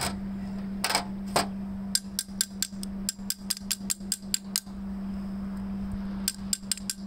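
Honda GC160 carburetor body knocked repeatedly against a hard bench, a few single knocks and then quick runs of about five knocks a second, to shake loose a stuck main jet and emulsion tube. A steady low hum runs underneath.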